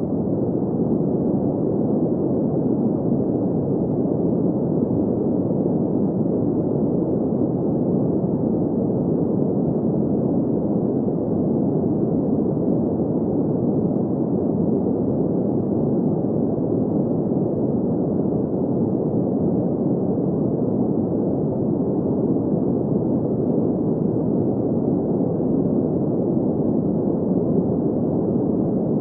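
Steady synthetic sleep noise, a deep, muffled rush with all its energy in the low and middle range and nothing bright above it, unchanging throughout.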